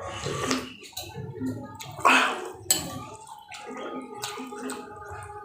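A person chewing and smacking wetly close to the microphone, eating rice with raw vegetables, in a steady rhythm about twice a second with many small mouth clicks. There is one louder wet burst about two seconds in.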